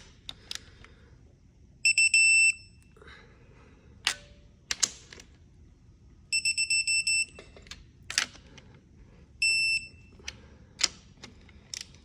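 A digital torque wrench beeps in rapid bursts of a high-pitched tone, three times: at each beep a cylinder head stud has reached its target torque of 90. Sharp clicks and knocks from the wrench work fall between the beeps.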